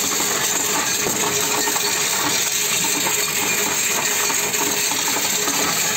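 Coinstar coin-counting machine taking in a large load of copper euro cent coins: a dense, continuous clatter of coins being pushed by hand through its perforated metal tray into the counter.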